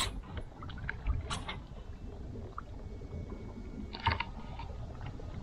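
Water lapping against plastic kayak hulls, with scattered small knocks and clicks of gear on the kayaks, and a brief splash about four seconds in as a bass is lowered back into the water for release.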